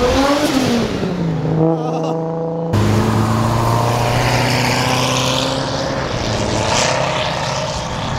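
A Toyota Supra's engine revs up, its pitch climbing for half a second, then drops back to a lower steady note. After a cut, a second sports car engine, a C7 Corvette's, passes with a loud, steady note.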